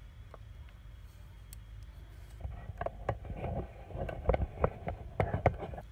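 Handling noise from a phone camera on a telescoping arm mount being repositioned and tightened: a cluster of knocks, clicks and rubbing starting about halfway through, loudest near the end.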